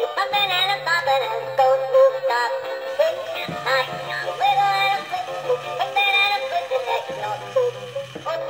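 Electronic singing toy Easter bunny playing its synthesized song through its small built-in speaker: a tinny sung melody over a simple repeating bass note. It sings even though its tapping foot does not move.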